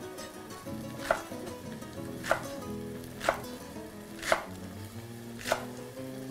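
Kitchen knife chopping Swiss chard leaves against a wooden cutting board: five sharp strikes about a second apart.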